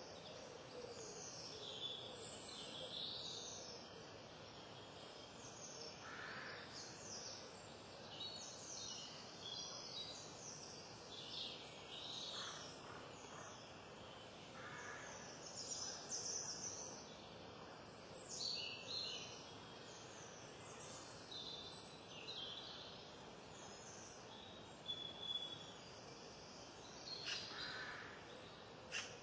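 Birds chirping and calling on and off over a steady, faint hiss of background noise.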